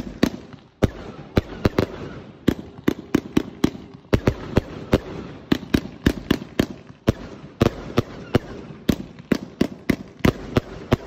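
Ground-fired firework barrage going off shot after shot, about three sharp bangs a second without a break, with crackle between the bangs.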